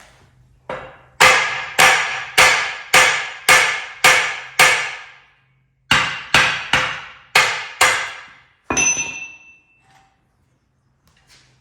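Hammer blows on the axle end of a Ford 9-inch rear end: a quick run of about eight strikes at roughly two a second, a short pause, five more, then one last strike that leaves a clear ringing tone. Each blow rings metallically. The hammering is meant to shock loose an axle with a seized, bad bearing so its 4-bolt retainer flange can be knocked off.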